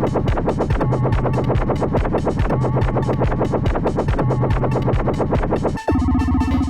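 Electronic dance music with a fast, dense beat and a repeating bass figure, switching abruptly to a sparser section with a steady low note about six seconds in.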